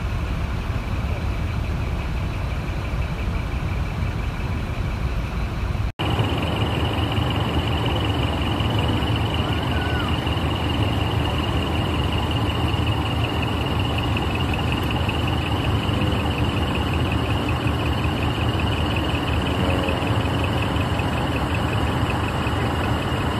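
Heavy trucks' diesel engines idling, a steady low rumble. The sound breaks off for an instant about 6 s in and comes back slightly different, with a steady high whine over the rumble.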